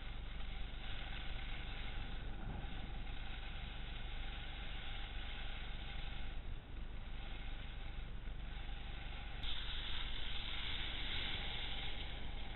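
Wind rushing over the microphone of a skier's camera during a downhill run, with a steady low rumble. The rush turns brighter and louder about nine and a half seconds in.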